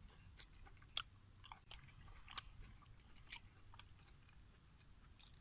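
A person chewing cooked pig intestine with the mouth close to the microphone: irregular wet lip smacks and clicks, about six or seven over a few seconds.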